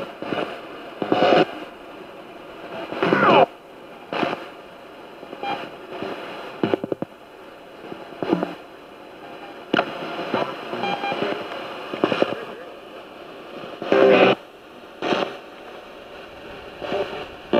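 Spirit box (ghost box) sweeping through radio stations: steady static hiss broken every second or two by short snatches of broadcast voices and music.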